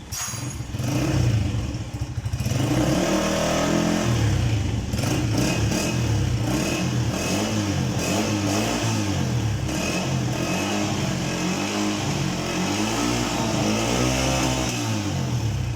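Atlas Honda CG 125's single-cylinder four-stroke engine being revved in repeated throttle blips, its pitch rising and falling about once a second.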